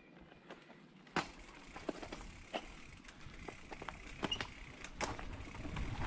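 Mountain bike rolling down a dirt forest trail. After a sharp knock about a second in, tyre noise and a low rumble set in with many clicks and rattles from the bike, growing louder as it picks up speed.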